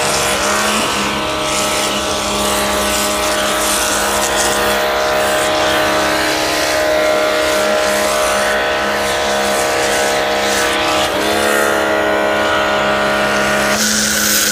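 Electric pressure washer motor running steadily while an MJJC Foam Cannon Pro sprays foam onto a car, over the hiss of the spray. About eleven seconds in, the motor's pitch dips briefly and climbs back. Near the end the spray hiss gets louder.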